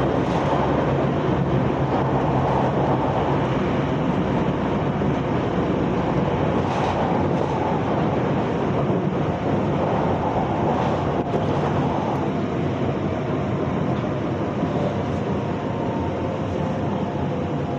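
Onboard running noise of an electric commuter train: a steady rumble and hiss of wheels on the rails. In the last third a faint whine glides slowly down in pitch.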